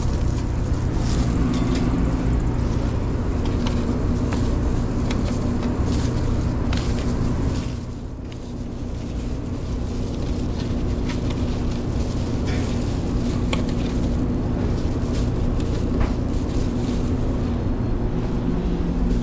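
Steady low hum of kitchen machinery, dipping for a moment about eight seconds in, with scattered clicks and knocks of a knife cutting flatbread and food being packed into a foil tray.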